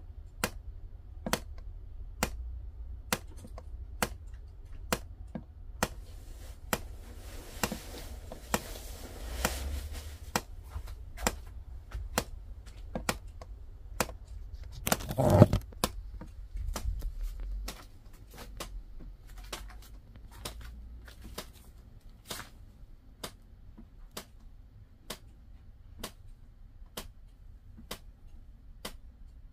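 A long run of sharp ticks, a little more than one a second and not quite evenly spaced, with a soft rustling stretch about a quarter of the way in and one louder thump about halfway.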